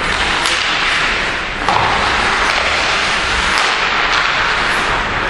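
Ice hockey play on the rink: a steady hiss of rink noise with a few sharp knocks of stick, puck or boards, about half a second in, near two seconds and around three and a half seconds.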